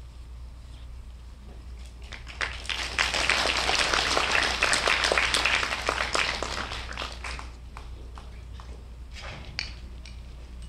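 Audience applauding at the end of a piece. The clapping swells in about two seconds in, holds for a few seconds and dies away, leaving a few scattered claps.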